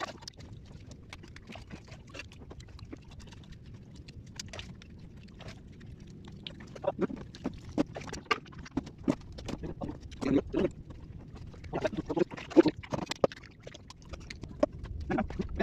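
Raw sea urchin being broken open and eaten: a run of sharp clicks, cracks and wet mouth sounds, much thicker in the second half, over a steady low rush of wind.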